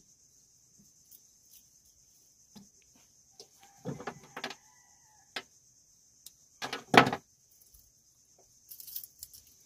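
A steady high insect drone, with a few knocks and rattles of fishing tackle being handled in the boat. The loudest knock comes about seven seconds in.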